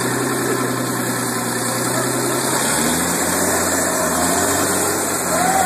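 A 366-horsepower engine running steadily at idle, its note settling lower a little under halfway through. Near the end a higher whistling tone starts to rise over it.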